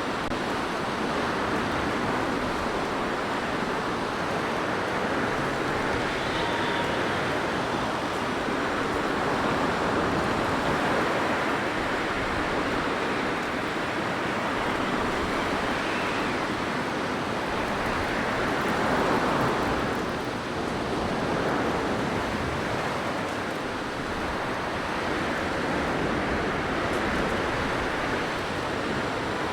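Blizzard wind: a steady rushing hiss that swells and eases in slow gusts, strongest about two-thirds of the way through.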